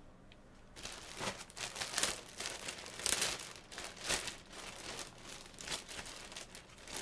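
Packaging crinkling and rustling as it is handled, in quick irregular crackles that start about a second in.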